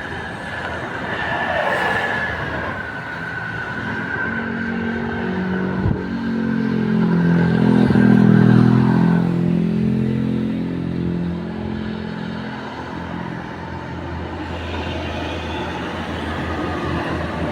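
Bus passing by and sounding a multi-tone telolet horn, several horn notes at once shifting in steps like a short tune, loudest about eight seconds in, over the noise of the bus going by.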